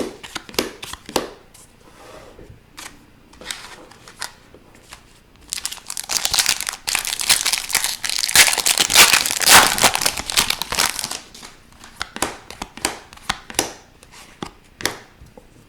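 A trading-card pack's foil wrapper crinkling and tearing for several seconds in the middle, with light clicks and rustles of cards being handled before and after.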